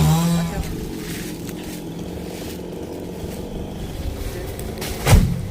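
An engine running steadily, with a short loud knock about five seconds in.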